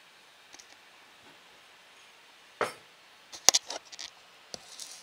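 Thin plastic bag worn around a kitten's body crinkling and rustling as she shifts in it: one sharp rustle a little past halfway, then a quick run of crackles and clicks, the loudest about three and a half seconds in, and a softer rustle near the end.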